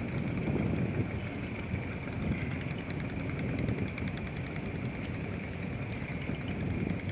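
Boat engine running steadily on the river, a low rumble with a faint, fast, even ticking over it.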